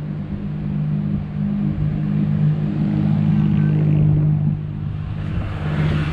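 An engine running steadily with a low hum, and a rushing noise that swells briefly near the end.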